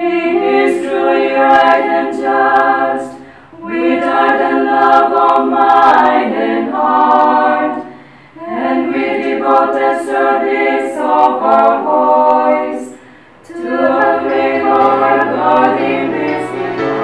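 Choir singing unaccompanied, in four sustained phrases with brief pauses for breath between them.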